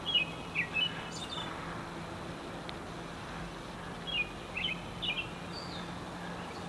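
A songbird chirping: a burst of quick short notes near the start and another about four seconds in, over a steady low hum of street noise.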